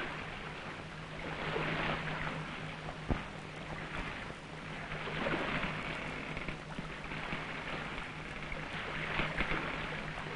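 Wind and sea noise at sea, surging and easing every second or two, over a steady low hum, with one sharp click about three seconds in.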